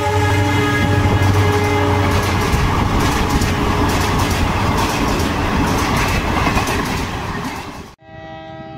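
Passenger train passing at speed: the horn, falling in pitch as it goes by, fades out about two seconds in, followed by the rumble and rapid wheel clatter of the coaches. The sound cuts off suddenly near the end and gives way to a steady, quieter train horn.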